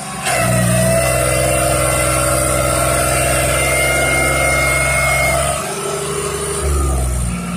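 New Holland TT55 tractor's diesel engine running under heavy load, pulling a loaded trolley through deep mud. It runs steadily, then its note changes abruptly about two thirds of the way in.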